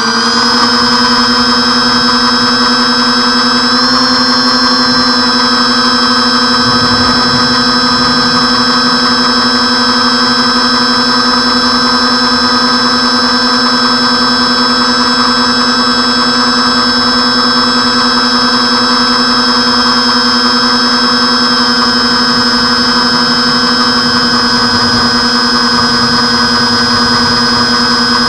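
Twin motors and propellers of an RC airplane, heard from the camera on board, running loud and steady at high throttle through the takeoff and climb. A whine that rises slightly in pitch in the first second, then holds steady.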